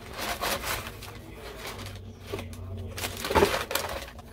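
Brown kraft packing paper crinkling and rustling as it is pushed aside inside a cardboard shipping box, with a louder crunch about three and a half seconds in.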